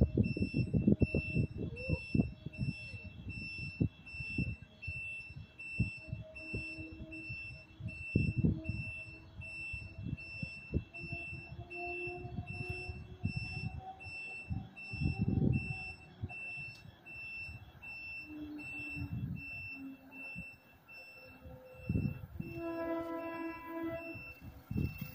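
A steady, high-pitched electronic alarm-like tone with a fast pulsing beep keeps sounding, over irregular low thumps. Near the end, the approaching train's horn sounds briefly.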